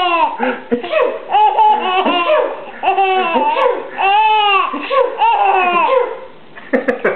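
A baby laughing: a string of high, squealing laugh bursts with short breaths between them, easing off near the end.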